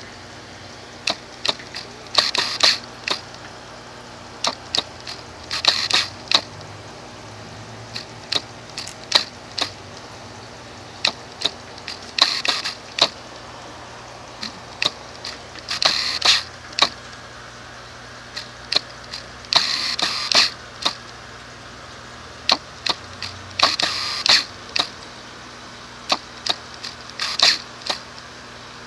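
Camera lens autofocus motor clicking sharply and irregularly, with short buzzing, crackly bursts every few seconds as the focus hunts, over a steady low hum.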